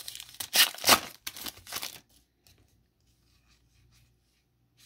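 Foil wrapper of a Panini Legacy football card pack being torn open and crinkled by hand, a few quick loud rips and crackles over the first two seconds. After that come only faint light rustles of the cards being handled.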